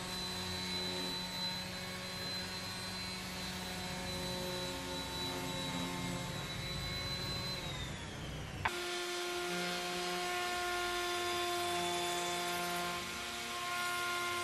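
Electric random orbital sander running steadily with a high whine, which drops in pitch as the sander winds down about eight seconds in. After a sudden cut, a router in a router table runs with a steady whine.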